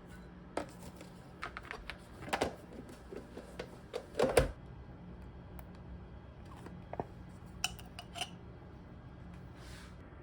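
Scattered clinks and knocks of dishes and utensils being handled during kitchen prep, loudest about four seconds in, with a few lighter clicks later.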